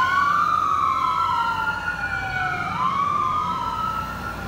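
Ambulance siren in a slow wail: the pitch climbs quickly and then sinks slowly, about twice in these few seconds. It grows fainter as the ambulance drives away.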